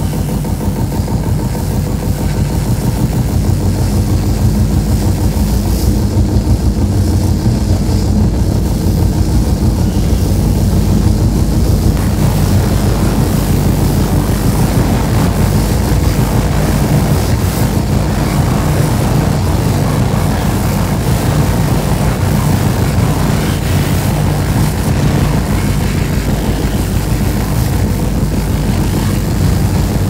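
Live electronic noise performance: a loud, dense drone of steady low tones under a gritty noise. About twelve seconds in, a harsher hiss fills in the upper range.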